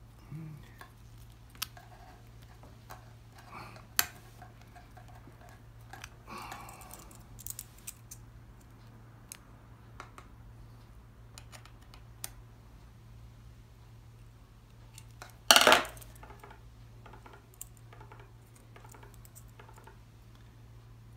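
Small metal clicks and clinks from the steel brake band and linkage of a Husqvarna 236e chainsaw's chain brake being handled and unscrewed with a screwdriver, with one louder clatter about two-thirds of the way through. A faint steady low hum runs underneath.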